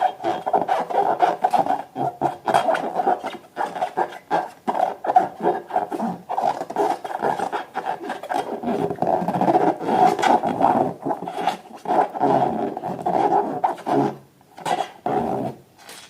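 Rubber balloons being squeezed and rubbed by hand, a continual rough squeaking and creaking with many small clicks, dropping away briefly near the end.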